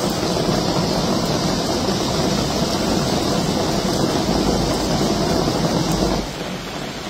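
Heavy rain pouring down onto a wet road and hedges: a dense, steady hiss. It drops abruptly to a quieter rain sound about six seconds in.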